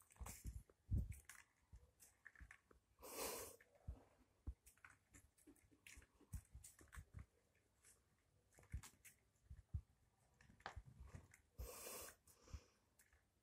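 Faint scattered taps and clicks of kittens' paws and a small toy ball on a parquet floor as they play. Two short breathy puffs stand out, about three seconds in and again near the end.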